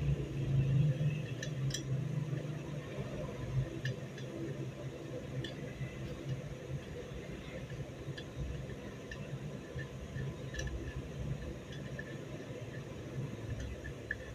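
Light metal clicks and taps from the parts of a 30-bore MP5-pattern gun being handled and fitted by hand, a few scattered clicks over a steady low hum.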